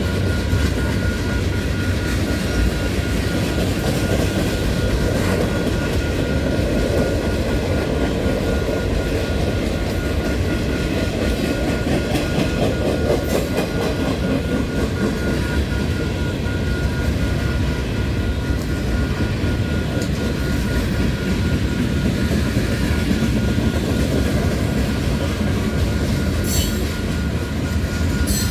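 Freight train's tank cars and covered hoppers rolling past, steel wheels on the rails making a steady rolling clatter. A faint steady high tone sits underneath.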